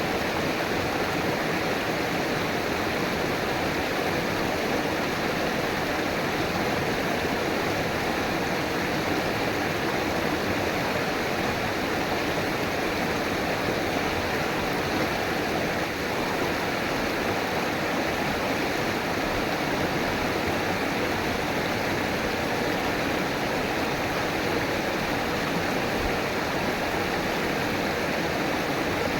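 River water flowing and rushing steadily over rocks, an even continuous rush with no breaks.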